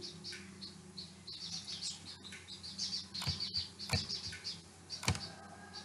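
Small birds chirping over and over in the background, faint high twitters throughout. A few sharp computer-mouse clicks come in the second half.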